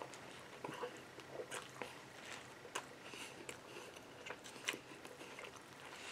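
A person biting into and chewing a burger as fast as he can: faint mouth clicks and smacks at irregular intervals.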